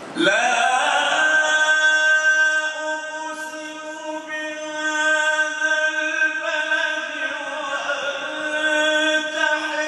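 A male Quran reciter chanting in melodic tajweed style, holding long drawn-out notes that shift pitch only slowly. The voice comes in suddenly just after the start.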